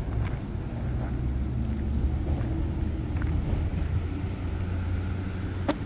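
Steady low engine rumble of a road vehicle, with a single sharp click near the end.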